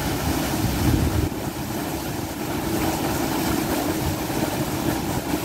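Electric irrigation pump's large outlet pipe discharging a powerful jet of muddy water, which crashes and churns into the channel below: a loud, steady rush of water with a steady hum underneath.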